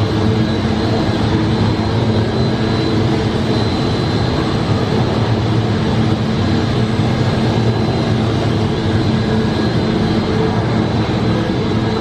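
Steady, loud mechanical drone with a low hum and a faint high whine, unchanging throughout.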